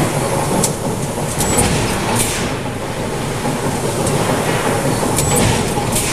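Komatsu 1600-ton hot forging press and its forge-shop machinery running: a loud, steady mechanical din broken by several short, high hisses.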